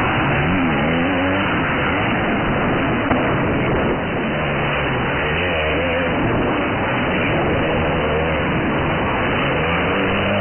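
Motocross bike engines revving hard, the pitch climbing and dropping again and again with throttle and gear changes over a steady engine drone, heard through a mobile phone's microphone.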